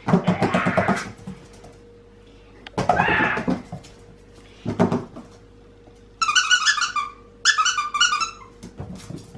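A squeaky plush toy squeezed twice, giving two high-pitched squeaks of about a second each in the second half. A few short, louder bursts of sound come before them, the loudest right at the start.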